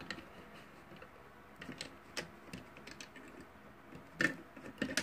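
Scattered light clicks and taps at an uneven pace, the sharpest pair about four seconds in and another near the end.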